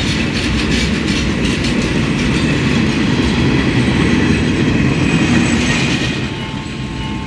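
Train coaches rolling past at speed, their wheels clattering over the rail joints in a dense rumble that eases off about six seconds in as the last coach goes by.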